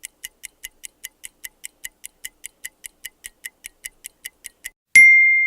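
A microwave oven timer ticking rapidly, about five ticks a second, then a single bell ding near the end, ringing and fading: the timer has run out.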